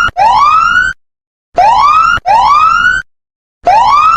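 Electronic siren sounding a mock emergency alert: loud rising whoops, each under a second long, in pairs with a short silence between the pairs.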